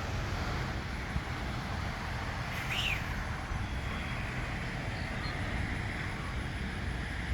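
Steady low outdoor rumble with no clear rhythm, and a single short bird chirp about three seconds in.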